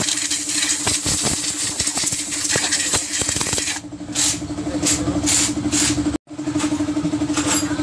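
Spray hissing in a series of short bursts, about two or three a second, from about four seconds in, as the dirty air-cleaner boot is cleaned. Under it runs the steady hum of an idling engine, with light clicks and knocks of parts being handled in the first half.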